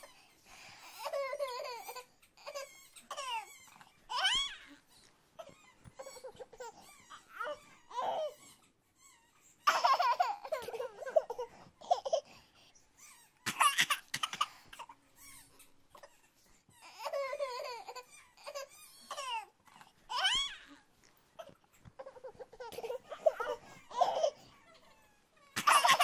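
Baby laughing and babbling in short bursts, on and off, with quiet gaps between.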